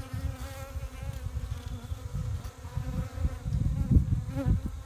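Honeybees buzzing in a steady drone around active hives, under an uneven low rumble on the microphone that swells about four seconds in.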